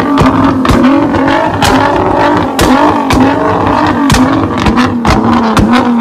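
Tuned Nissan GT-R's twin-turbo V6 revved repeatedly while stationary, its note rising and falling about once a second. Loud exhaust pops and bangs crack through it as the exhaust shoots flames.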